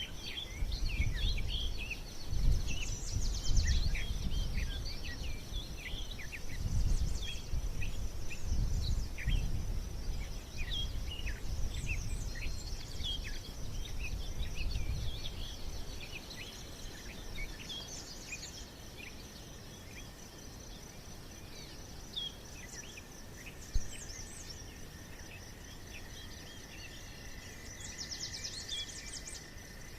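Many birds chirping over a steady high insect drone, with irregular low rumbling through the first half.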